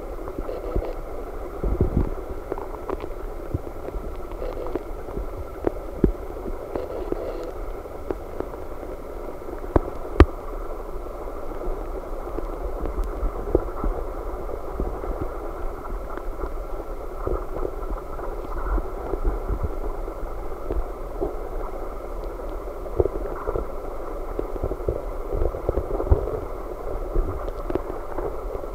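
Aquarium aeration: a steady muffled bubbling of air streaming up through the tank water, full of small pops, with a low rumble beneath and a few sharper clicks.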